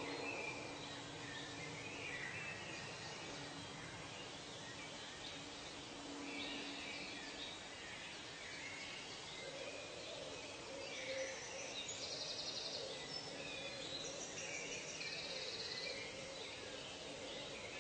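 Tropical forest ambience: scattered bird chirps and calls over a steady background of insects, with two short, rapidly pulsed high trills in the second half.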